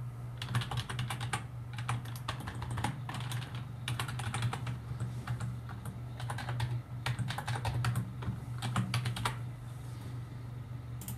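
Typing on a computer keyboard: quick runs of key clicks with short pauses, stopping about a second and a half before the end, then a single click near the end. A steady low hum runs underneath.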